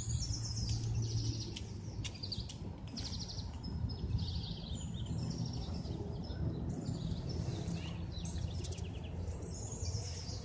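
Several small birds chirping and giving rapid trills again and again, over a steady low background rumble.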